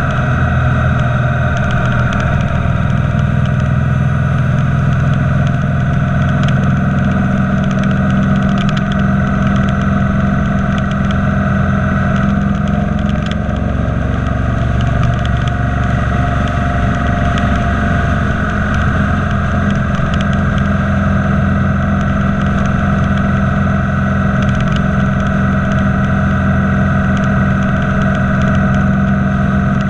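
Motorcycle engine running steadily at highway cruising speed, with a constant rush of wind and road noise over it.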